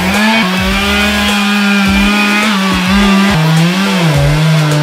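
Chainsaw running near full throttle, its pitch dipping and recovering several times.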